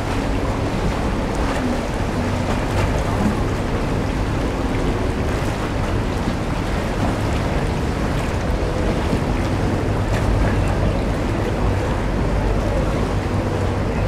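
Engines of passing water buses and motorboats running with a steady low hum, over the rushing noise of the churned-up canal water and wash.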